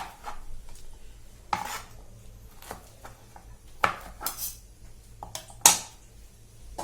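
Kitchen clatter of dishes and utensils being handled and set down: about six separate clinks and knocks at irregular intervals, the loudest near the end.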